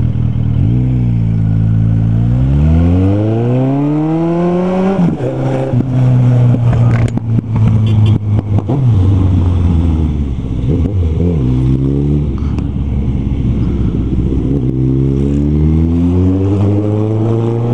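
Motorcycle's inline-four engine on an aftermarket exhaust, heard from the rider's seat, pulling away in a long rising rev over the first few seconds and then rising and falling in pitch through several gear changes and throttle changes.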